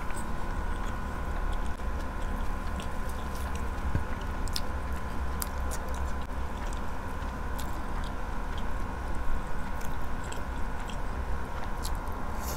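Close-miked eating: chewing with scattered short wet mouth clicks as grilled chicken and rice are eaten by hand, with a bite into the chicken near the end. A steady background hum runs underneath.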